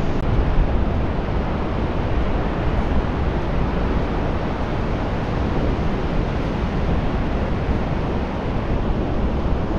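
Steady rush of Pacific surf breaking and washing up a wide sandy beach, mixed with wind on the microphone.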